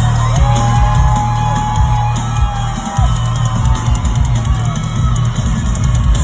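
Loud live rap concert music through a PA: a heavy bass-and-drum beat.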